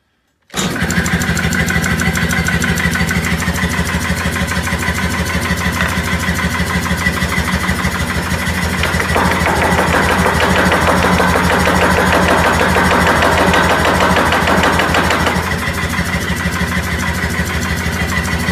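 Anyang ST C41-15 self-contained air power hammer (15 kg ram) switched on: its motor and built-in air compressor start about half a second in, then run with a loud, steady rapid beat of about 300 strokes a minute. A louder, harsher stretch comes in the middle.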